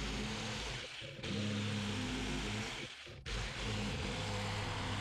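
Jigsaw cutting a curved line through rough, unplaned barn board, its motor and reciprocating blade running steadily. The cut eases off briefly twice, about a second in and about three seconds in.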